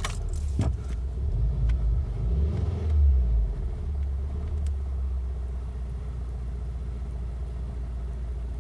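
2012 VW Jetta GLI's 2.0-litre turbocharged four-cylinder engine starting and given a little gas, swelling about three seconds in, then settling into a steady idle. It is a warm engine that has been stalling right after starting.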